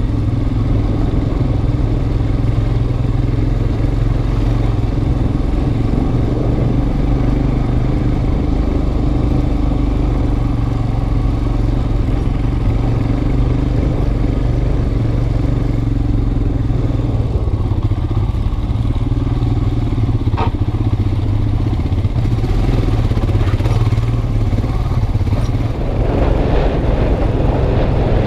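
Motorcycle engine running steadily as the bike rides a rough, rocky dirt track, heard from a camera mounted on the bike. There is a sharp click about twenty seconds in.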